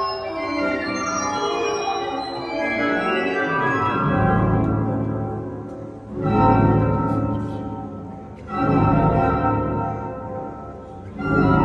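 Newly installed church pipe organ played from its console: a descending run of notes, then, from about four seconds in, full chords over deep bass notes, sounded four times, each swelling and then fading. The pipes are not yet tuned or voiced.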